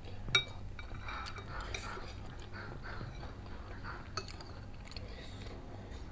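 Metal spoon and fork clinking against ceramic bowls while scooping cilok balls from spicy broth. A sharp clink comes about a third of a second in and another about four seconds in, with softer scraping and eating sounds between.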